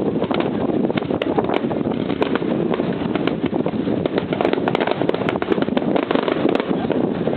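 Fireworks bursting in a dense, continuous barrage of pops and crackles, many small shells going off at once.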